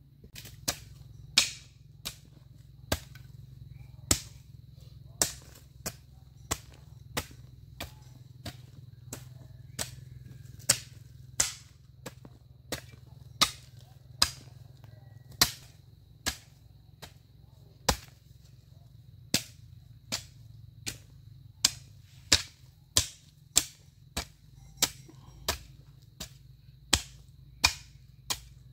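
A hoe blade striking and breaking up hard, lumpy soil in a steady work rhythm, one sharp chop every second or so, sometimes two close together.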